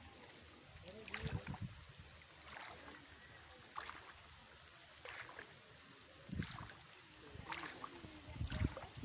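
Feet wading through shallow floodwater: faint sloshing splashes at a steady walking pace, about one a second.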